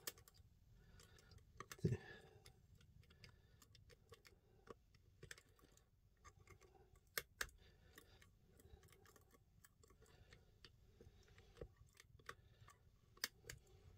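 Faint, irregular light metallic clicks of a lever pick and tension tool working inside a mortice lever lock, with a few sharper clicks about halfway through and near the end.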